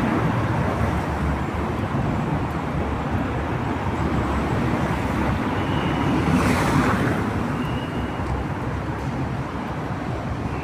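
Wet city street in the rain: a steady hiss of rain and traffic, with a vehicle passing on the wet road about six to seven seconds in.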